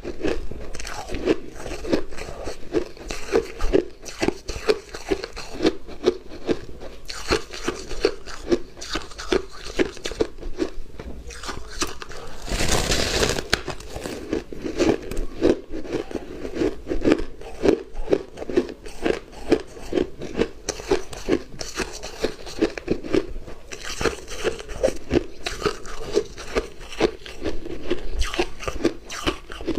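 Close-up chewing of crunchy shaved and refrozen ice: a run of regular crunches, roughly two a second, with a louder, harsher burst of crunching about 13 seconds in.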